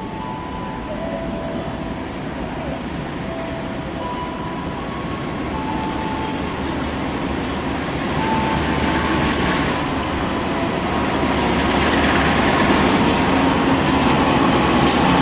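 GE CC204 diesel-electric locomotive hauling a passenger train through a station, its engine rumble and wheel noise growing steadily louder as it approaches and draws alongside. A few brief squeals and, in the second half, sharp clicks are heard over it.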